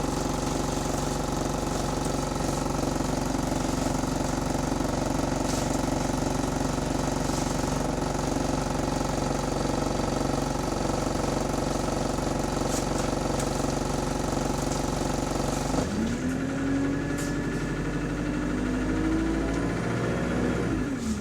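Bus diesel engine idling steadily. About three-quarters of the way through it pulls away: the engine note rises in two steps, like gear changes, then drops near the end.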